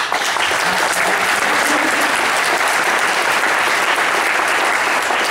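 Audience applause, loud and steady.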